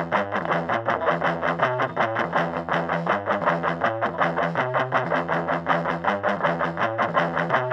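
Electric guitar played through a Fender Mini Twin miniature practice amp: a fast, steady run of picked notes, several a second, without a break.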